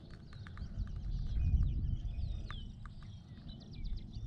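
Wind rumbling on the microphone, swelling about a second and a half in, over a steady scatter of high animal chirps and a few short descending whistles.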